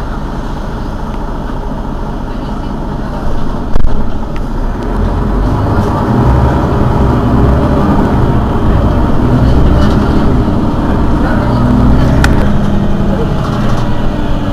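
Mercedes-Benz Citaro city bus engine running while the bus stands at a stop. A little under four seconds in there is a short loud thump, and after it the engine runs louder with a stronger low throb.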